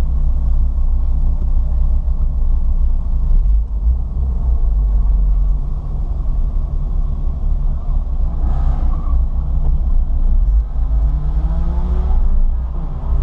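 Ford Fiesta ST heard from inside the cabin at speed on track: a steady heavy rumble of engine and road noise. In the last few seconds the engine pitch climbs as the car accelerates.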